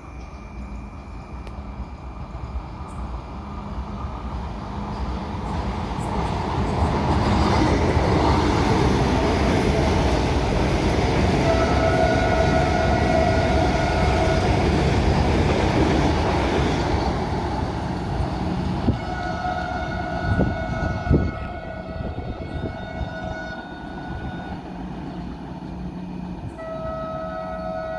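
Vande Bharat Express train running through a halt at speed without stopping: its rumble on the rails builds, holds loud for about ten seconds, then eases off. It sounds long horn blasts three times, first about halfway through, then again with two sharp knocks, and once more near the end.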